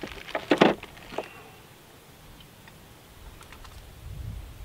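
A few sharp clicks and knocks of cartridges and gun parts being handled on a table, mostly in the first second and a half, then quiet with a faint low rumble near the end.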